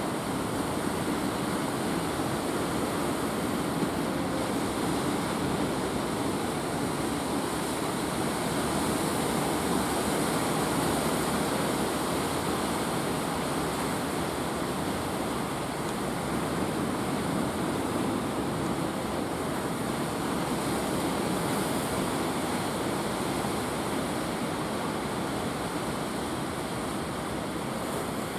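Ocean surf breaking and washing ashore: a steady rush of waves.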